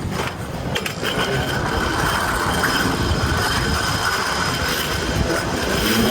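Metal rollers of a roller slide rumbling and rattling under someone sliding down it, with a steady whine that sets in about a second in.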